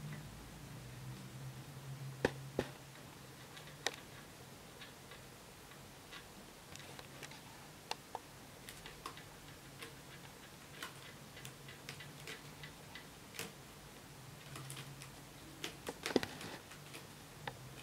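Irregular light clicks and taps from a Scottish fold kitten playing on a sisal scratching post, its claws and toys catching and knocking, with a denser run of clicks near the end as it climbs the sisal post. A faint low hum runs underneath.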